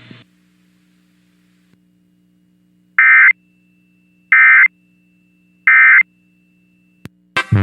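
EAS SAME End of Message data tones: three short, identical warbling digital bursts, each about a third of a second long and about a second apart, marking the close of the Emergency Alert System test.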